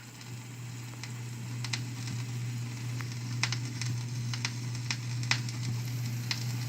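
Vinyl LP surface noise from a Zenith console stereo before the music begins: a soft crackle with about a dozen scattered clicks and pops, over a steady low hum.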